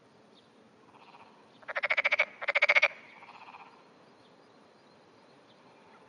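Japanese wrinkled frog (tsuchigaeru) calling: two short croaks in quick succession about two seconds in, each a rapid train of pulses lasting about half a second.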